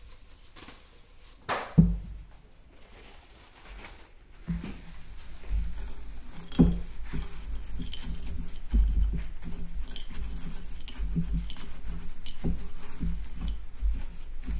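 Small steel balls from a linear bearing carriage clicking and rattling against each other in an oiled bowl as they are pressed and rolled under a paper towel to clean them. A couple of sharp knocks come about two seconds in, then a steady rattle of many small clicks starts about four and a half seconds in.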